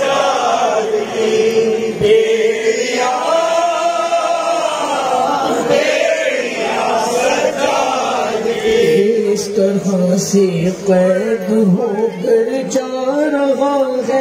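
Male voices chanting a noha, a Shia mourning lament, in long held lines that rise and fall in pitch.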